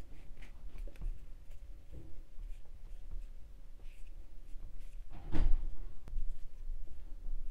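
Small scattered clicks and handling noises from hands working yarn and a crochet hook, with one louder knock about five seconds in.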